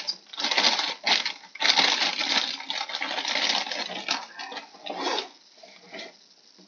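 Thin clear plastic packaging crinkling and crackling as a figure part is worked out of its bag, loud and irregular, dying down about five seconds in.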